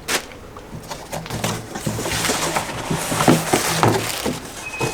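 Plastic packaging rustling and crinkling in short, irregular handling noises as clothing is unwrapped, over a faint low steady tone.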